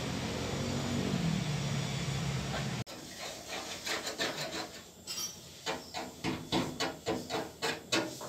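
A steady low hum for about three seconds, which stops abruptly. Then short, even hand-scraping strokes on sheet metal, about two to three a second: blistered paint being scraped off the cab roof of a Suzuki Carry pickup.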